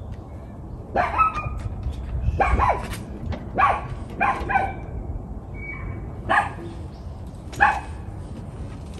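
A small dog, a dachshund, barking and yipping: short calls, often in quick pairs, about every second at first, then two more spaced further apart.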